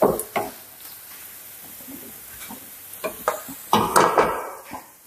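Wooden spatula knocking and scraping in a nonstick frying pan of sambar tempering (mustard seeds, dried red chillies, shallots and curry leaves in coconut oil), with a faint sizzle. About four seconds in there is a louder clatter as the aluminium pressure-cooker lid and pan are moved on the stove.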